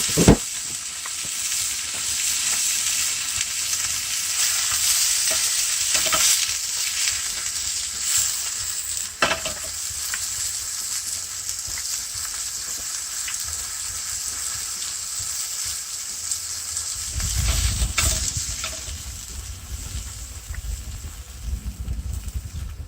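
Food sizzling in a hot pan, a steady hiss with a few sharp clicks of a utensil against the pan. A low rumble joins in for the last several seconds.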